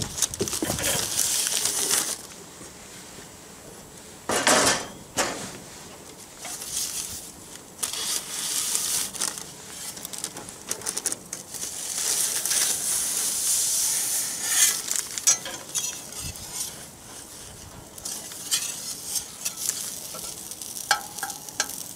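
A metal spatula scraping and clattering on a hot soapstone grilling stone and parchment paper rustling as a pizza is slid onto the stone, with some sizzling from the stone, which is heated over 400 degrees. The sounds come in several stretches with short pauses between.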